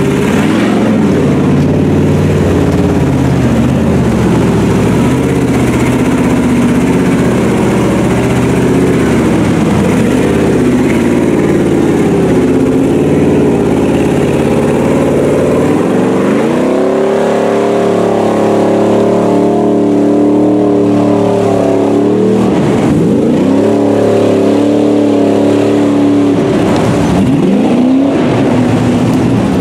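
Lifted Chevy mud truck's engine running hard under load as it pushes through deep floodwater. Its pitch holds steady, rises about halfway through, then holds at the higher note.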